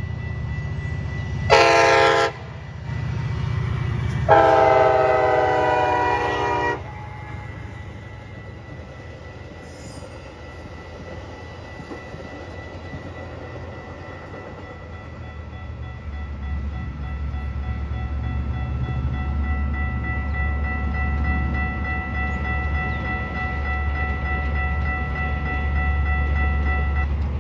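Diesel locomotive horn of a Metra commuter train sounding a short blast and then a long one, over the steady high-pitched ringing of a Siemens electronic crossing bell. From about halfway through, the low rumble of the passing bilevel passenger cars joins the bell, which grows louder toward the end.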